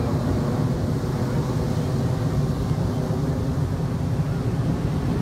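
Twin-engine jet airliner passing overhead: a steady low rumble of its engines.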